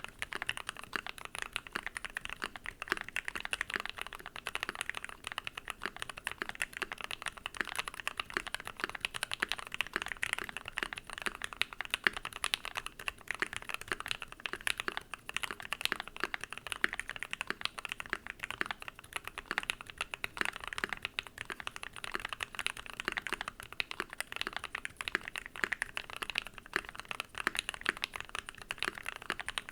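Typing sound test on a Keychron Q1 mechanical keyboard fitted with an FR4 plate: a steady, fast stream of keystroke clacks with no pauses.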